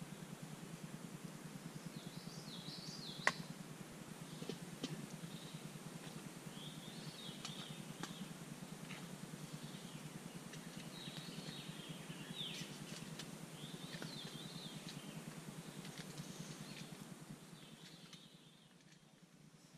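Evening woodland ambience: birds call in short chirping phrases, over a steady low hum. A campfire gives a few sharp pops, the loudest about three seconds in. The sound fades near the end.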